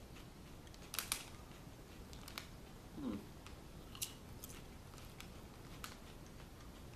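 Potato chips crunching as a person bites and chews them: a few sharp, separate crunches scattered through a quiet stretch.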